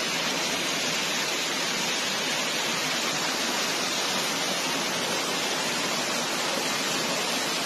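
Steady rush of flowing floodwater, an even noise without separate splashes, cutting off abruptly at the end.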